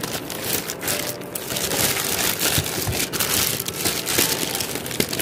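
Clear plastic bag crinkling and rustling as it is pulled open around a ceiling fan's motor, a continuous crackle of small clicks.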